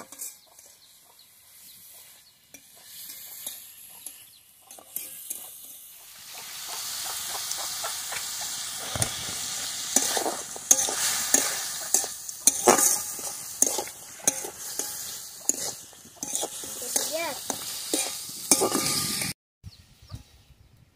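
Chicken pieces frying in oil in an aluminium wok, stirred and scraped with a metal spatula. Light scrapes and clicks at first, then from about six seconds in a loud sizzle with repeated sharp scrapes of the spatula on the pan, which cuts off abruptly near the end.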